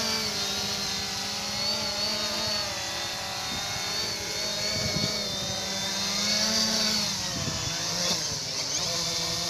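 UP Air UPair One quadcopter's electric motors and propellers whirring steadily as it descends to land, the pitch wavering up and down as the motors adjust. It is still whirring after it settles on the grass near the end.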